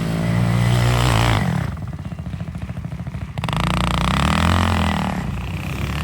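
CFMOTO CFORCE 110 youth ATV's small single-cylinder engine revving as it is ridden, with the throttle let off for about two seconds in the middle before it revs up again.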